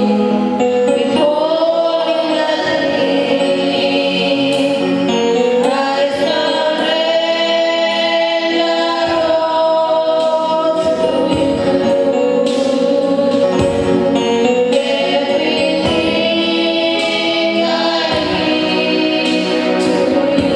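A choir of voices singing a gospel worship song with musical backing, holding long sustained notes.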